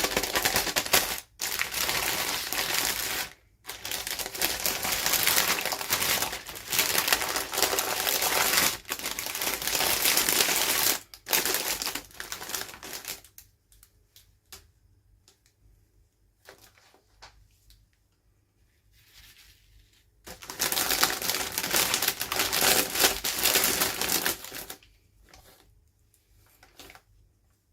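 Plastic toy packaging being unwrapped by hand, crinkling and rustling in dense, crackly stretches. It stops about 13 seconds in, with only a few small clicks, then crinkles again for about four seconds before dying down to light clicks near the end.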